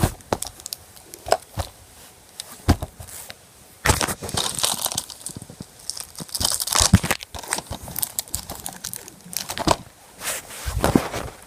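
Plastic wrapping on a DVD box set crinkling and tearing as it is pulled off, with irregular clicks and knocks from handling the case. There are louder rustling bursts about four seconds in, around six to seven seconds and near the end.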